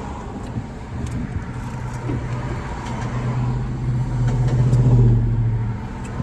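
Car running, heard from inside the cabin: a steady low engine and road hum that swells to its loudest about five seconds in, then eases off.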